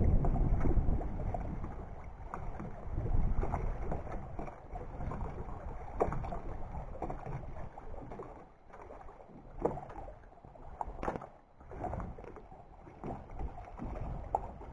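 Wind buffeting the microphone in uneven gusts, over choppy lake water lapping at the dock, with scattered sharp knocks and clicks.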